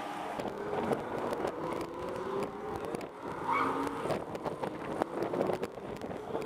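Supercar engine running, its pitch rising slowly, with scattered short clicks around it.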